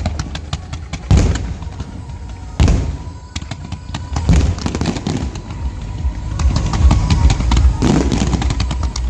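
Fireworks bursting overhead: sharp bangs about a second in and again at about two and a half seconds, then dense rapid crackling from about four seconds on, with music playing underneath.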